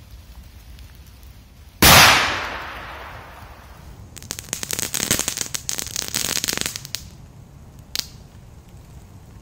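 Firecrackers going off: one sharp, loud bang about two seconds in with a ringing tail that fades over a second, then about three seconds of rapid crackling pops, and one last single pop near the end.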